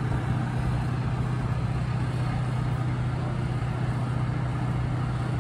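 Steady low mechanical hum over a wash of outdoor city noise, unchanging throughout.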